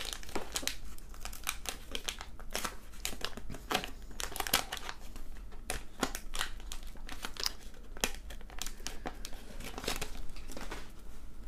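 Paper wax-pack wrapper of a 1991 Fleer basketball card pack crinkling and tearing as it is ripped open by hand and the cards are pulled out: a dense, irregular run of crackles.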